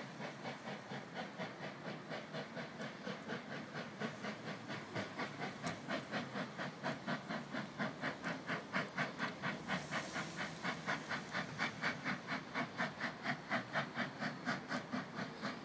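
NSW C35 class steam locomotive 3526 working hard as it approaches. Its exhaust beats about four to five times a second over a steady hiss of steam, and grows louder.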